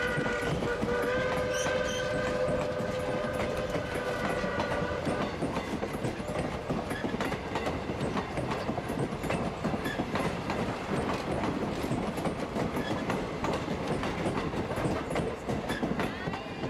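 Steam whistle of Norfolk & Western 4-8-0 No. 475 blowing a long, steady note that stops about five seconds in. Passenger coaches roll past throughout, their wheels clicking and rattling over the rail joints, with the sound fading near the end as the last car goes by.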